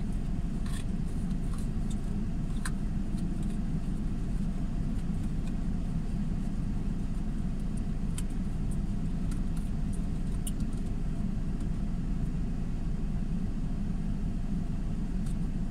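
Steady low rumble of a car engine idling, with a few faint clicks.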